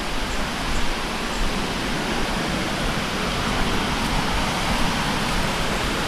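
Steady rush of a fast-flowing river, an even hiss with no breaks.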